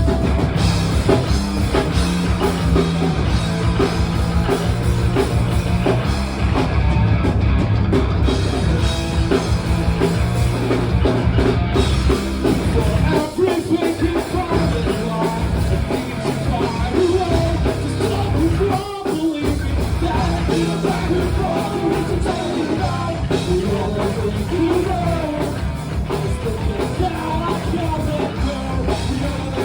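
Rock band playing loudly with electric guitars, drums and shouted, punk-style singing; the band cuts out briefly twice.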